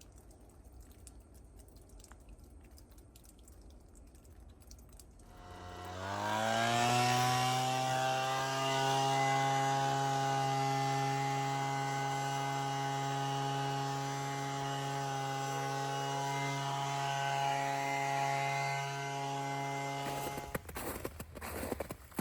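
A motor starts about five seconds in, quickly rising in pitch as it spins up, then runs at a steady pitch until it cuts off suddenly near the end.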